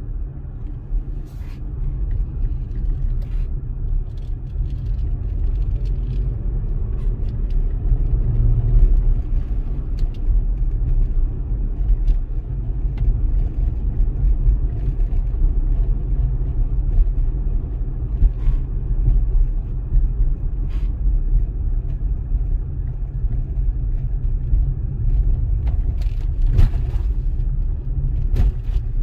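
Car driving: a steady low rumble of road and engine noise, with a few faint ticks and knocks scattered through it, several close together near the end.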